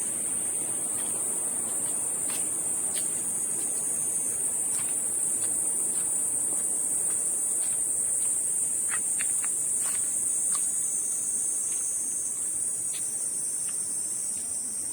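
Insects droning steadily in one even high-pitched buzz, with a few faint clicks scattered through it.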